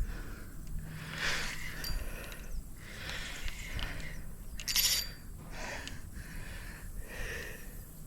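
Fishing reel working in uneven bursts while a bass is fought on a medium-light rod, with a brief sharp high-pitched burst about five seconds in.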